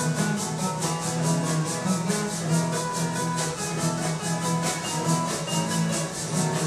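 Maracas shaken in a steady rhythm, about four shakes a second, over two acoustic guitars playing a Mexican folk-song accompaniment.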